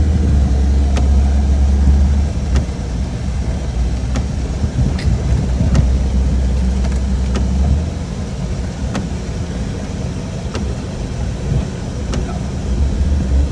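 1992 Jeep Cherokee XJ driving through deep snow: a steady low engine and road drone that eases off about eight seconds in, with scattered faint clicks.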